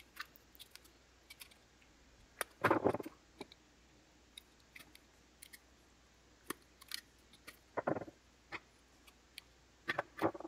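Diagonal cutters snipping and cracking the plastic housing of a GFCI plug around its blades, among small clicks. There are louder crunches about a quarter of the way in, about three-quarters of the way in, and near the end.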